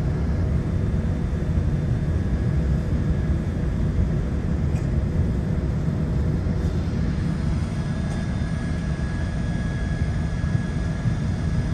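Steady low rumble and hiss of an airliner cabin at the gate, with the ventilation running and a faint steady high whine over it.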